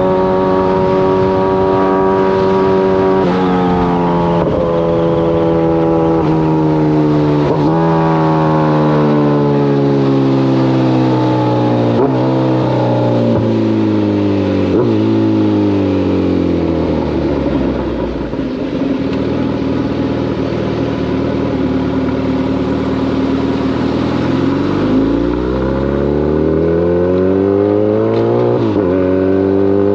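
Kawasaki ZX-14's inline-four engine under way, its note falling steadily for most of the first half as the bike slows, running low and steady for a few seconds, then rising again as it accelerates, with short breaks in the pitch at gear changes.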